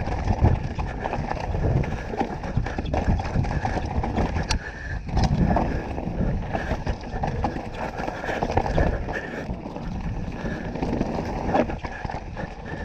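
2018 Canyon Torque CF9 Pro full-suspension mountain bike riding down a rough dirt trail: steady tyre noise on dirt and rocks with irregular knocks and rattles of the bike over bumps, heard from a helmet chin-mounted camera.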